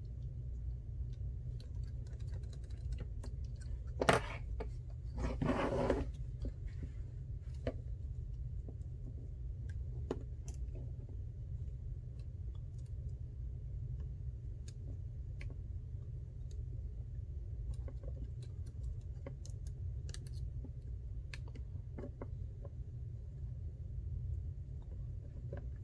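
Small, scattered clicks and taps of hand tools on iPhone XR parts as the small metal bracket and its screws are fitted back in place, with a sharper click about four seconds in and a short rustle just after. A steady low hum runs underneath.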